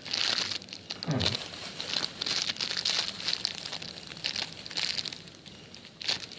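Crinkling and rustling in repeated short bursts as a squishy toy is handled and squeezed in the hands, dying down near the end.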